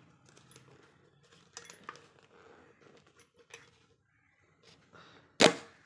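Light clicks and taps of hard plastic parts being handled, then one sharp knock with a short ring near the end as an object is set down hard.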